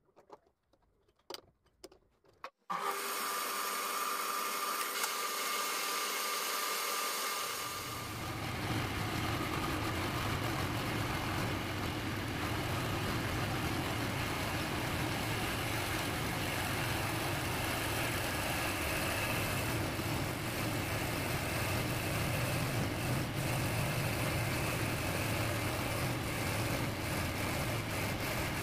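Belt-driven wood lathe: a few faint clicks, then a little under three seconds in the machine comes in suddenly, running with a steady hum. From about eight seconds a hand-held turning tool cuts into the spinning wooden block, a steady rough scraping over the lathe's low rumble.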